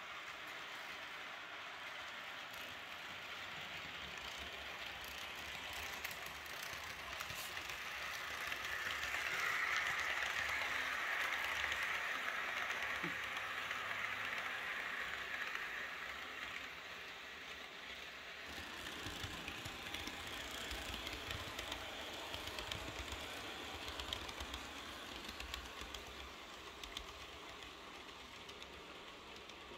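Model train running on the layout's track: a steady rolling rush of wheels on rails that swells as the coaches pass close, about ten seconds in, then fades, with light clicking over rail joints and points later on.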